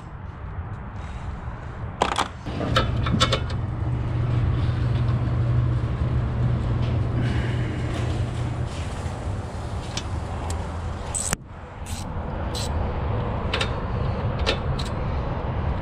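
Scattered clicks and knocks of hand tools and parts being handled, over a steady low rumble.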